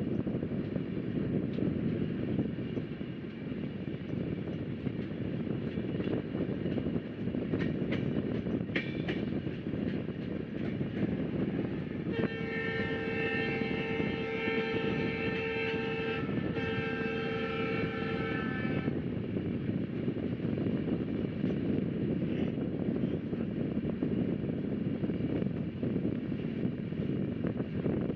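Rajdhani Express passenger train running with a steady low rumble of wheels on the track. About twelve seconds in, a train horn sounds: a long blast, a brief break, then a shorter blast.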